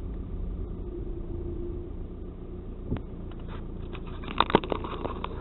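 Diesel Volkswagen Passat rolling slowly, heard inside the cabin: a steady low engine and road rumble. Over the second half come a scatter of sharp clicks and knocks, two loud ones close together.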